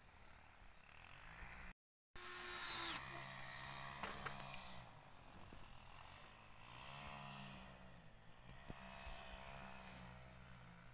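Faint power drill running in spells, its whine rising and falling in pitch as the speed changes, with a few sharp clicks; the sound cuts out completely for a moment near the start.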